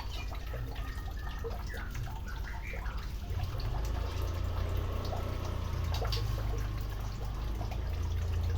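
Water splashing and dripping in quick, irregular little splashes as a white-rumped shama bathes, over a steady low rumble.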